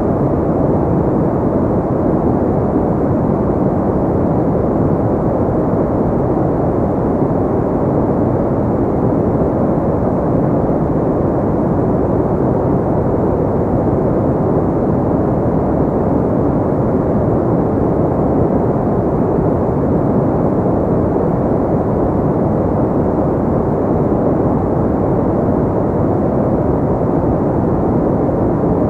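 A steady ambient noise track of the kind sold as white noise for sleep, deep and rumbling with little treble, running evenly without any change.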